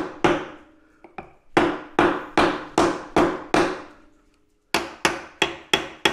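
Brass hammer blows on a block of wood driving a tapered roller-bearing race into a Honda CT70 frame's steering head tube: three runs of steady knocks, about two and a half a second, with short pauses between. The last run, near the end, rings sharper, which is the sign that the race is fully seated.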